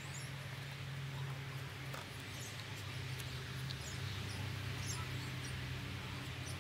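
Quiet background: a steady low hum with scattered faint, short, high-pitched chirps.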